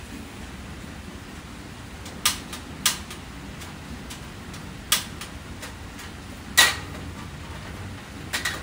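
Portable butane stove's igniter clicking about five times as it is turned again and again without lighting: the butane canister has run empty. Steady rain in the background.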